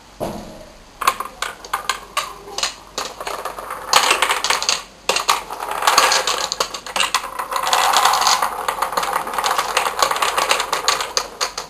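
Balls of a wooden rolling ball clock tipping off its tracks and rolling down the wooden zigzag ramps into the return tray: a rapid, continuous clatter of clicks and rattles, with a brief break about five seconds in.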